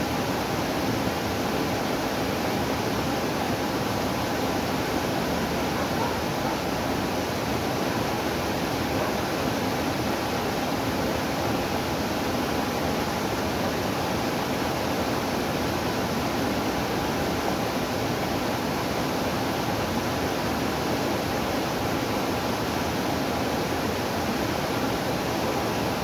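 Small waterfall pouring over a rock ledge into a pool: a steady, unbroken sound of falling water.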